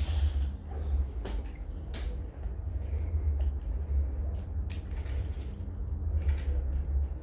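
Scattered sharp clicks and knocks of a resistance band's metal clip and handles being picked up and clipped together, including a quick double click near the middle, over a steady low rumble.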